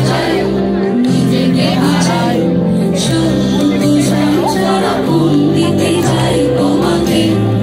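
Live concert music over a large PA system: a band playing a Bengali song with held keyboard chords and a female lead vocal, loud as heard from within the crowd.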